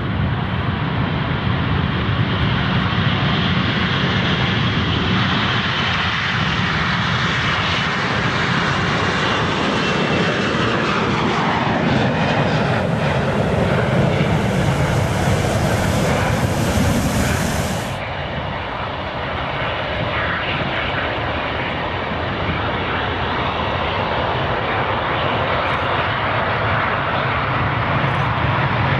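Airbus A340-300's four jet engines at takeoff thrust as the airliner rolls and lifts off, the pitch of the engine noise sweeping down as it passes by. About two-thirds of the way through, the sound cuts to the steady takeoff noise of a twin-engine Airbus A330 accelerating down the runway.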